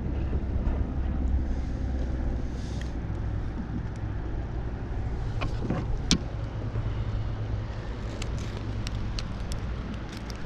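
A boat's motor running with a steady low rumble, with a few sharp clicks and knocks about halfway through and again near the end.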